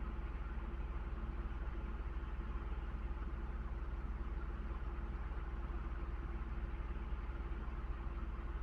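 A steady, unchanging machine hum with a deep rumble beneath it.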